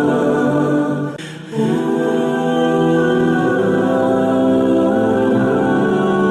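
Slow background music of wordless choral voices holding long chords, with a brief dip about a second in.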